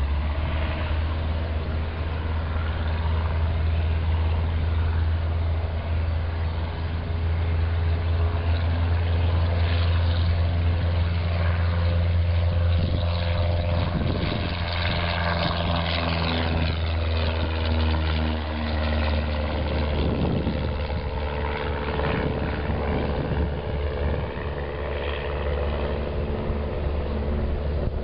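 Cessna 172SP's four-cylinder Lycoming engine and two-blade propeller at full takeoff power, a steady drone as the plane rolls past, lifts off and climbs away.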